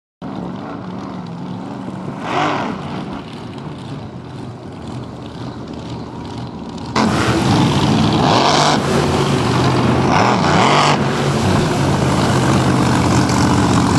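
Supercharged alcohol-burning V8 of a flatbottom K boat running hard on the water, its pitch rising and falling with the throttle. About halfway through the sound jumps suddenly louder and closer as a boat passes near, the engine note bending up and down.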